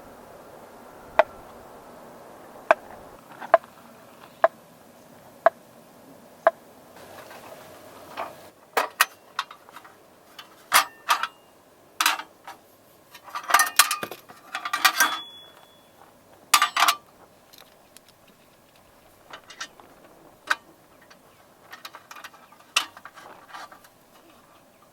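Sharp clicks about once a second, then a run of clinking and clattering of small hard objects being handled, busiest in the middle, with lighter scattered clicks near the end.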